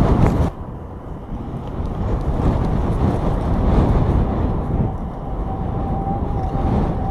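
Low, steady roar of a large wedge tornado mixed with the wind around it, rumbling unevenly like a distant freight train. A short louder gust opens it, and a faint steady high tone joins about two-thirds of the way in.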